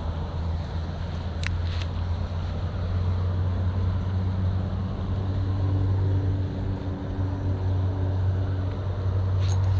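Steady low rumble of highway traffic, growing slightly louder toward the end, with a faint engine note from a passing vehicle in the second half.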